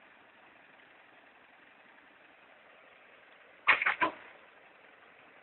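Faint steady background noise, broken about two thirds of the way through by a quick run of three or four sharp knocks.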